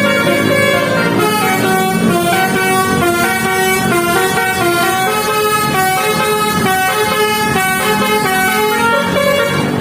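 Indonesian bus 'telolet basuri' musical air horn playing a continuous melody of held notes that step up and down in pitch, over a low rumble.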